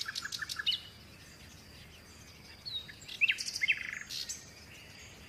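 Small birds chirping in short, quick calls: a flurry in the first second, then more chirps from about three to four seconds in.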